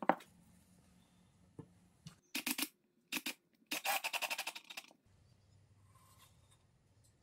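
A cordless drill driving a screw through a wooden strip into a wooden jig block, in three short bursts, the last about a second long with a rapid pulsing. A sharp knock at the start as a steel tube is set on the jig.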